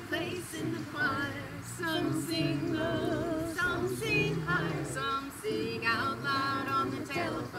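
Congregation singing a hymn, women's voices leading, with long held notes that waver.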